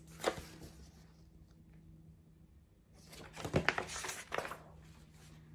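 Paper rustling and handling of a picture book's pages as a page is turned: a brief flurry of rustles about three seconds in, after a quiet stretch.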